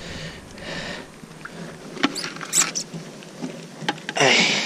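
A wet collapsible crab trap is lifted out of the water onto a paddle board: dripping water and scratchy rustling of the netting, with a few sharp clicks from the trap's frame and a louder rush of noise near the end.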